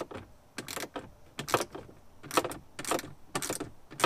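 Socket ratchet clicking in short repeated strokes, a little more than one a second, as 8 mm screws are backed out of a plastic body panel.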